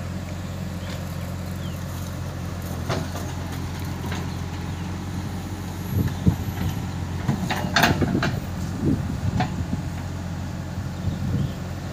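JCB 3DX backhoe loader's diesel engine running steadily while it loads earth. From about halfway, a string of irregular clanks and scraping as the bucket digs into the pile of soil.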